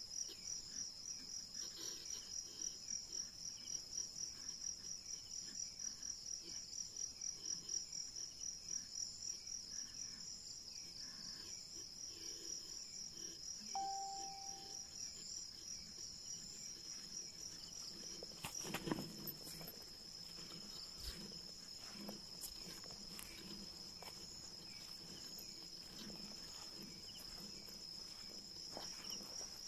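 Night insects chirring in a high, continuous trill that pulses a few times a second at first, then runs steadier. A short whistle-like note sounds about halfway through, and a sharp crack or rustle comes a little after.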